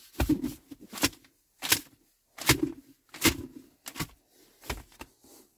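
A run of sharp clicks or taps, evenly spaced at about one every three-quarters of a second.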